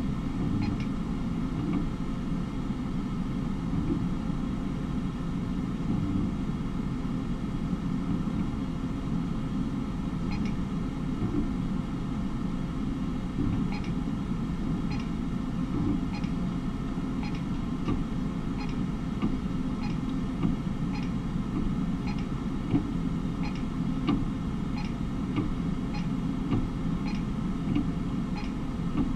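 Steady low hum of an automated visual field test machine running a glaucoma test. From about ten seconds in, faint short clicks come roughly once a second as the test goes on.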